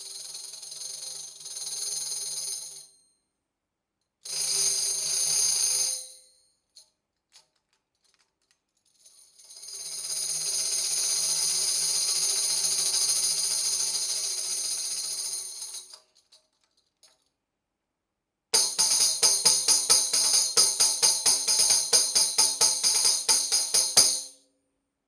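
Black Swamp TD3 10-inch tambourine jingles: two short shakes, then a long shake that swells and fades over about six seconds. Near the end comes a fast, even pattern of about six jingle hits a second.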